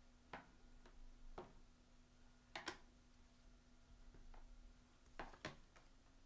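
Near silence with a low steady hum, broken by a few faint, sharp clicks and taps, the last ones as a quick pair near the end.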